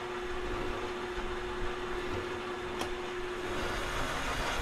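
Metal lathe running with a steady whine while a long boring bar is fed slowly into the scored bearing journal of a shaft. There is a single tick about three seconds in. The whine stops near the end as a harsher, hissing cutting noise builds.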